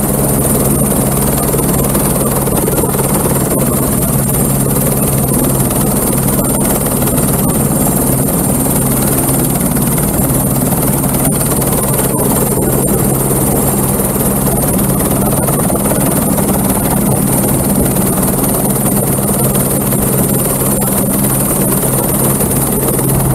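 Airbus H125 light helicopter running on the ground close by: its single turboshaft engine and turning main rotor give a loud, steady drone with a thin high whine above it.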